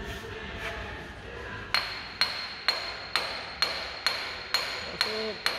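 Short sledge hammer striking the end of a Honda Pilot's front CV axle: a run of nine steady metal-on-metal blows with a ringing tone, about two a second, starting a little under two seconds in. The blows drive the tight-fitting axle into place.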